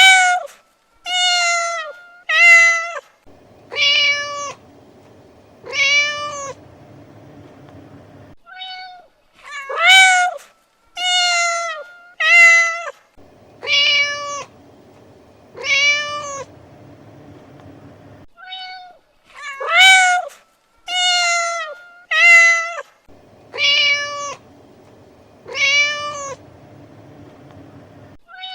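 A domestic cat meowing over and over, a call every second or two. The same run of about six meows repeats roughly every ten seconds, like a looped recording.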